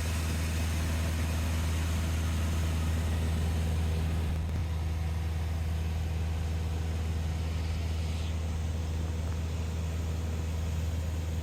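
A steady engine drone: a low hum held at one pitch under an even hiss, unchanging throughout.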